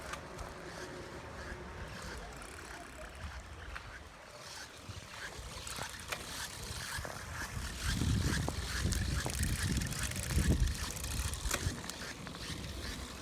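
Brompton folding bicycle in use with an abnormal noise from its Tunnus fitting: repeated small clicks and squeaks over a steady rolling noise. A louder low rumble comes in from about eight seconds in until near the end.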